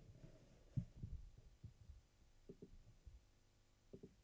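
Near silence, with a few faint low thumps scattered through it and a faint steady high-pitched whine.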